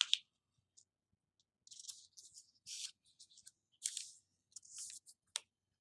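Origami paper rustling as a corner is folded in to the centre crease and the fold is pressed flat: several short, faint swishes, with a sharp tick a little after five seconds in.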